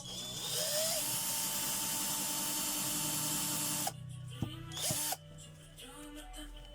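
Angle grinder running under load on metal for about four seconds, a steady whine under a harsh hiss, then cutting off suddenly.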